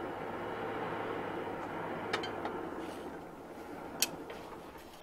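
Coal forge fire with air driven in by a hand-cranked blower: a steady rush of air and fire with a low hum, fading from about three seconds in. Two sharp metal clinks of tongs come about two and four seconds in.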